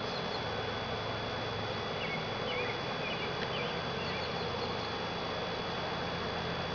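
A honeybee swarm buzzing: a steady, dense hum of many bees in flight. The bees are agitated after being shaken off a tree into a hive.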